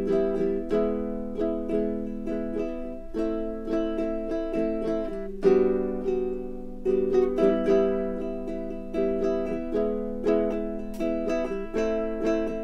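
Solo baritone ukulele played as background music: a run of plucked notes and chords, each one picked and left to ring.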